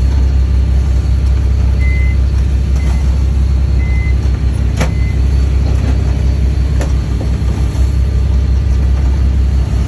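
Fishing boat's engine running with a steady low drone heard on board. A few short high beeps sound about two to five seconds in, and there are two sharp knocks near the middle.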